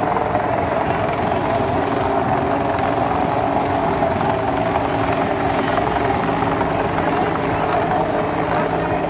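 Helicopter overhead, a steady drone with several held tones, mixed with crowd voices and commotion.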